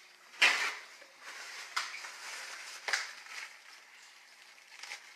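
Handling noises: a sharp knock about half a second in, then a few lighter clicks and faint rubbing as the rim of a glass pie dish is wiped clean.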